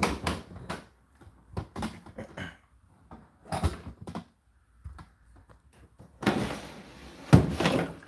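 Plastic water container of an Indesit condenser tumble dryer being pulled out of its drawer: a scraping slide with a sharp knock near the end, which is the loudest sound. Scattered clicks and knocks of handling the dryer's plastic front come first.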